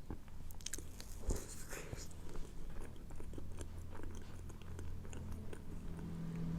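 Close-miked eating of a soft cake dessert: chewing and biting with small, irregular wet mouth clicks and smacks.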